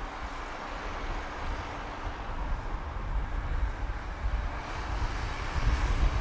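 Steady outdoor ambient noise: a low rumble with a hiss over it, growing slightly louder near the end.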